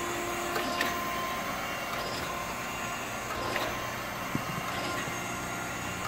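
Okamoto 124N reciprocating surface grinder running: a steady machine hum with a few steady tones and occasional faint clicks.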